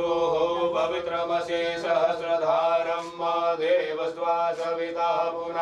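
Mantra chanting sung on long held notes, the phrases breaking and starting again about once a second.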